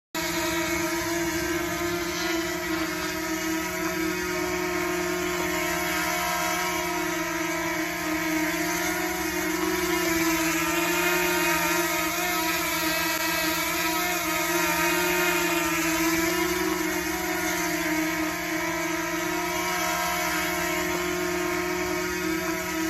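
DJI Mini quadcopter drone flying, its small propellers and motors giving a steady high buzzing whine that wavers slightly in pitch as the motors adjust speed.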